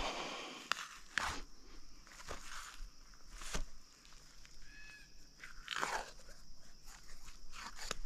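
Knife working through a chital deer carcass: irregular crunching, scraping and tearing as meat and hide are cut away.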